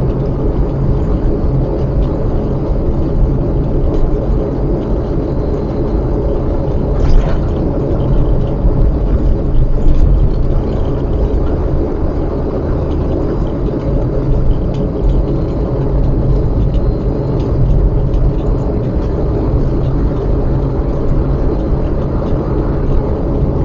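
A car driving along city streets: a steady low rumble of engine and road noise.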